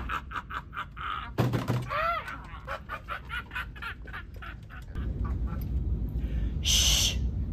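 Sound of a silly video playing from a laptop: a quick run of clicks, about five a second, with a few short pitched calls among them, then a duller stretch and a short hiss near the end.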